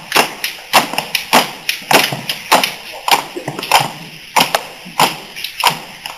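A group of young voices chanting or singing a song they made up, over a steady beat of sharp knocks about every 0.6 seconds.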